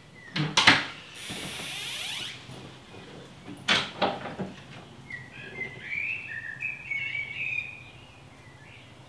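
Clicks and knocks of a door latch and handle as a door is unlatched and pulled open, with a short rattle in between. Small birds chirp outside once the door is open.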